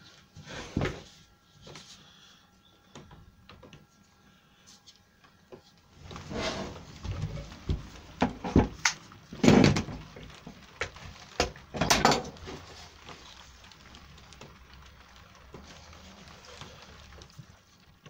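Clamps being handled on a workbench while a band clamp's strap is wrapped around a bent-plywood form: scattered knocks and clatter, busiest in the middle and loudest about nine and a half seconds in.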